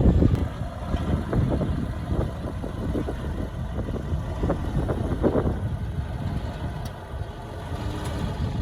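Heavy diesel earthmoving machinery running with a low engine rumble and a few short knocks near the middle.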